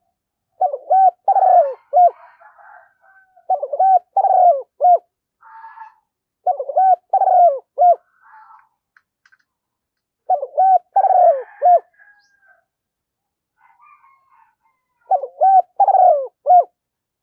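Spotted dove cooing in five repeated phrases, each a quick run of three or four coos. Faint higher chirps come between the phrases. This is a lure call played to get other spotted doves calling.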